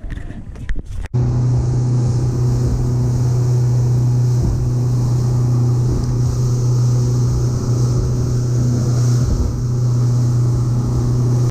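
Boat engine running steadily at speed: a loud, even low drone with water and wind rushing over it, starting abruptly about a second in.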